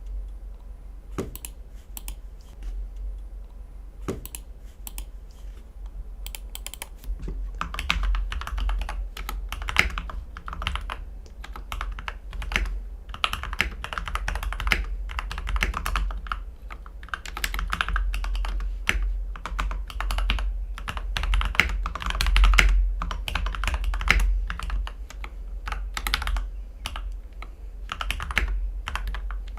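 Mechanical keyboard typing on Gateron Ink V2 Black linear switches, lubed with GPL 205 and filmed, in a CIY X77 board with an aluminium plate, tape mod and PE foam mod. Scattered single key presses for the first several seconds, then fast continuous typing.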